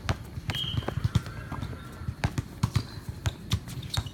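Basketball bouncing on a court floor in play, irregular sharp thuds, with a short sneaker squeak about half a second in.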